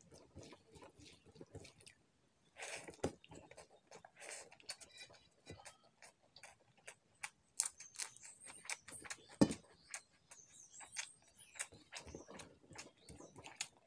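Someone eating rice with their fingers from a steel plate: wet, irregular clicks and smacks from mixing the rice by hand and from chewing with open lips. A sharper click stands out about nine and a half seconds in.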